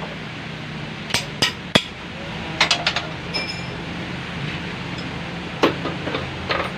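Metal parts and hand tools clinking and knocking against each other, a string of sharp taps, one of them ringing briefly about three seconds in, over a steady low hum.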